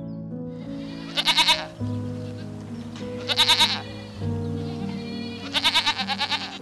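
Goat bleating three times, each a wavering, pulsing call, the last one the longest, over background music with held notes.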